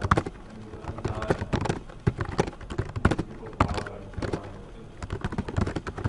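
Typing on a computer keyboard: quick, irregular key clicks.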